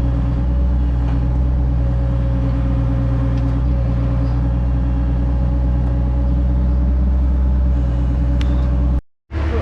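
Excavator's diesel engine running steadily while digging around a septic tank. It cuts off abruptly near the end.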